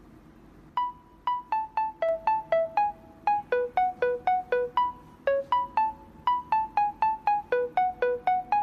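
Background music: a simple melody of short, quickly fading chiming notes like a music box or toy keyboard, about three to four notes a second, starting about a second in.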